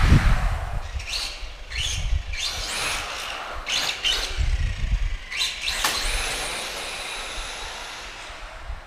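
Electric motor and drivetrain of a Tamiya TB03-D radio-controlled touring car whining in about seven short rising throttle bursts, then winding down and fading in the last few seconds. A low rumble sounds near the start.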